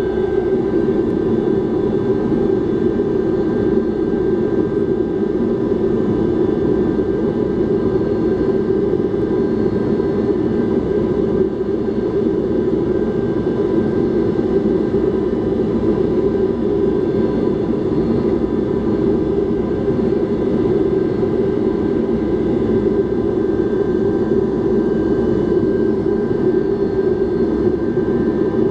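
Cabin noise of a Tupolev Tu-154B taxiing, its three rear-mounted Kuznetsov NK-8-2U turbofans running at steady low power. A steady rumble with a few faint whining tones over it.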